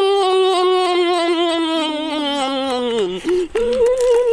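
A boy's long drawn-out hummed "mmm" of relish while eating crab, its pitch wavering and sliding slowly down. It breaks off about three seconds in, and a shorter, higher hum follows near the end.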